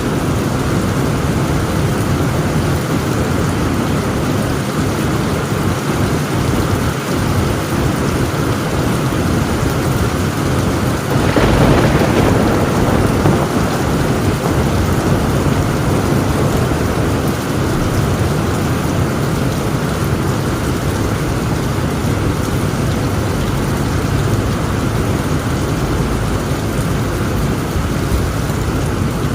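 Heavy rain falling steadily on a tin roof, with low thunder rumbling underneath and a louder thunderclap about eleven seconds in.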